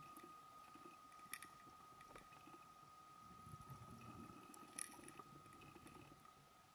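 Near silence underwater: a faint steady high tone and low rumble, with two faint clicks, about a second and a half and about five seconds in.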